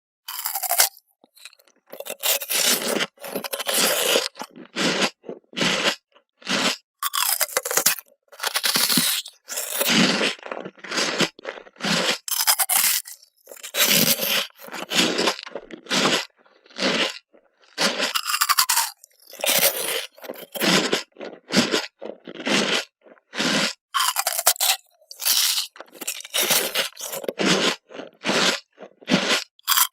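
Ice cubes crunched and chewed close to the microphone, a rough, gritty crunch about once a second with short silences between.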